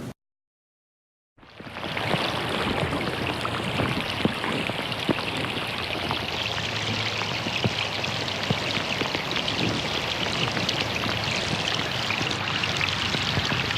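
Steady, heavy rain, with single nearby drops standing out as sharp ticks. It starts after about a second of silence and swells in quickly.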